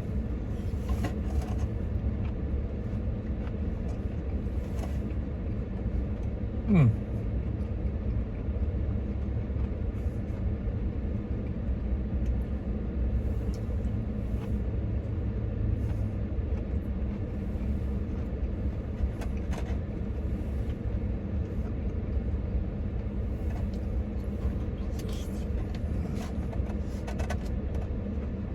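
Steady low rumble like a vehicle running, with a few faint clicks and a short falling tone about seven seconds in.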